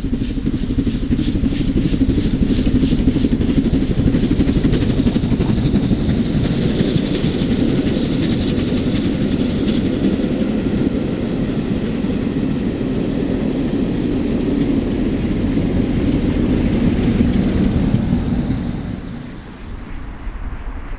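LMS Princess Coronation Class 4-6-2 steam locomotive 6233 Duchess of Sutherland passing under steam, its exhaust beating in a quick, regular rhythm. The steady running noise of its coaches rolling by follows and then falls away near the end.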